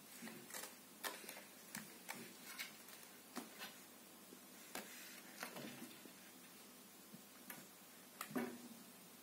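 Faint, irregular light clicks and taps from a kitten's claws catching on a sisal scratching post and batting at the pom-pom toys hanging on the post's wire springs.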